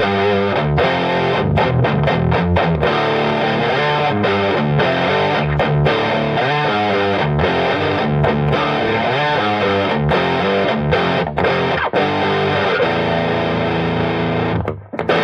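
Electric guitar played through an EGO TM2 set to its OD100 lead sound: a distorted, sustaining lead line of quickly changing single notes, with a short break near the end.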